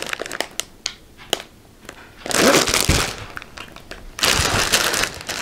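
Clear plastic bag around a cross-stitch kit crinkling and rustling as it is handled, with a few light clicks and taps at first, then two loud bouts of rustling about two seconds in and again near the end.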